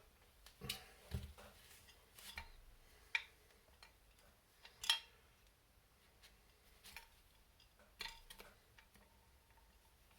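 Small metal parts and a hex key clicking and tapping as grub screws are done up on an RC excavator's hinge pins: scattered sharp clicks, the loudest about five seconds in.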